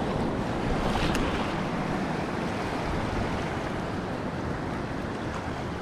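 Small waves washing over a rocky reef shelf: a steady rush of surf, with wind on the microphone and one faint click about a second in.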